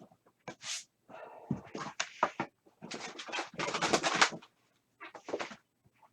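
Rustling and scraping handling noises, bunched in a busy stretch through the middle: packaging and cards being moved about.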